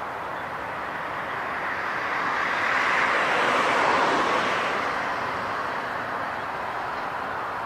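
Jet airliner passing, a rushing noise that swells to a peak about three to four seconds in and then fades, dropping slightly in pitch as it goes by.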